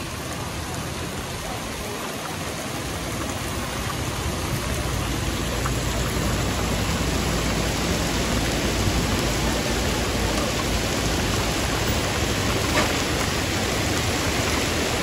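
Heavy rain pouring down in a steady hiss, growing a little louder a few seconds in, with a low rumble of road traffic underneath.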